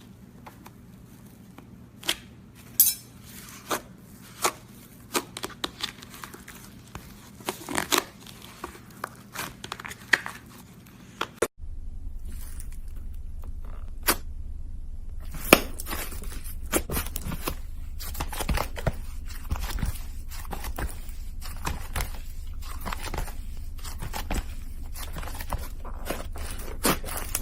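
Slime being squished and stretched: a run of sticky clicks, pops and crackles. About a third of the way through it cuts to another slime clip with a steady low hum under denser crackling.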